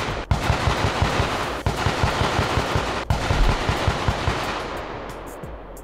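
Rapid, sustained automatic gunfire, many shots a second, fading out near the end.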